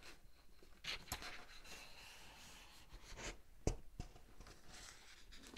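A page of a large hardcover picture book being turned: paper sliding and rustling, with a soft knock about a second in and a louder one past halfway. After that, fingertips brush over the paper.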